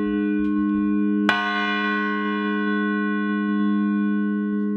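Restored chapel clock-tower bell ringing: struck about a second in and again at the very end, each stroke's tone hanging on and overlapping the last.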